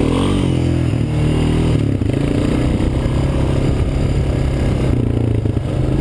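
Honda TRX350 FourTrax ATV's single-cylinder four-stroke engine under throttle, rising in pitch as it accelerates at the start, then running at a steady speed.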